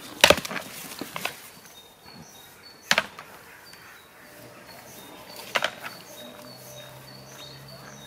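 Domestic goats butting heads: a few sharp knocks of horn on horn, the loudest just after the start and others about three and five and a half seconds in, with faint bird chirps behind.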